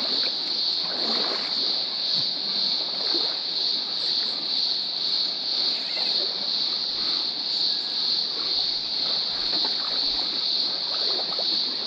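A steady, high-pitched insect chorus buzzes without a break, pulsing gently, over the trickle of a shallow rocky stream. Now and then there is a soft splash of feet wading through the water.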